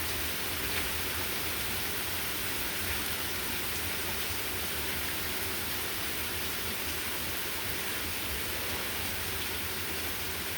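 Steady rain falling, a constant hiss with a few faint drop ticks.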